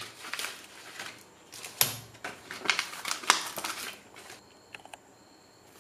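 Small plastic zip-lock coin bags crinkling and rustling as they are handled, in quick sharp crackles that die down after about four seconds.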